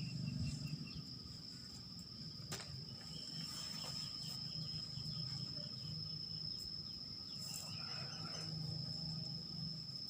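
Quiet background: a steady high-pitched whine over a low hum, with a single sharp click about two and a half seconds in.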